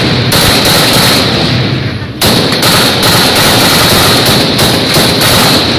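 Automatic gunfire in two long bursts, the first about two seconds long and the second, after a brief pause, running on for about three and a half seconds.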